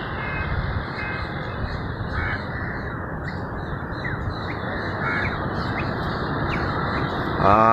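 Scattered short bird calls, crows among them, over a steady background hiss of outdoor noise.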